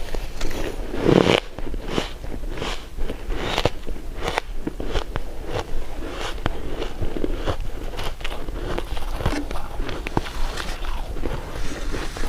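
Close-miked eating: a series of crisp bites and crunchy chewing, with a fuller bite about a second in.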